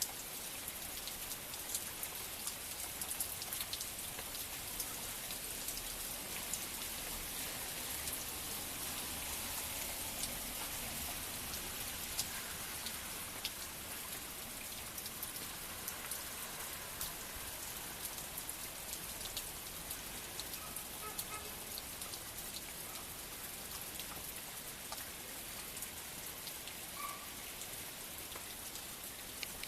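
Heavy rain pouring steadily, a dense hiss with many sharp ticks of drops striking close by.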